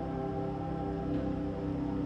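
Ambient background music with steady, layered held tones.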